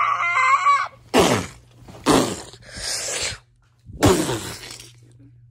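A person's voice making creature noises for a monster puppet: a short squeak, then four harsh screeches about a second apart, each falling in pitch.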